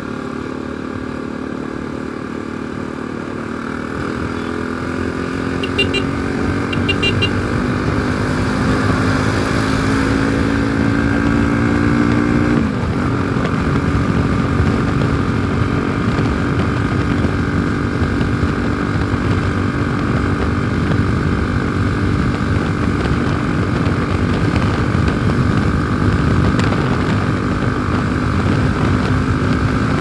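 Bajaj Pulsar NS200 single-cylinder motorcycle engine running under way. Its pitch climbs steadily for several seconds, drops suddenly about twelve seconds in, then holds steady.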